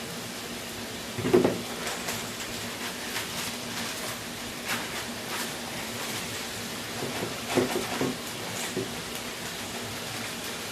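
Dishes and serving pieces being handled on a kitchen counter: a clatter about a second in and a few more knocks near eight seconds, over a steady hiss.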